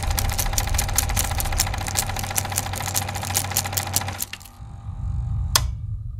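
Old film projector running: a fast, even clatter of clicks, about seven a second, over a steady tone and a low hum. The clatter stops about four seconds in, and a single sharp click follows near the end over the low hum.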